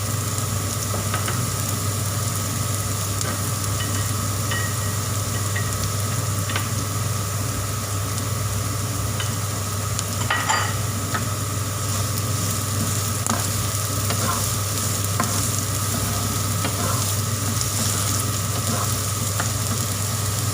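Chopped onion and carrot sautéing in hot oil in a frying pan, sizzling steadily as they are stirred, with scattered clicks and scrapes of the utensil against the pan, one louder about halfway through. A steady low hum runs underneath.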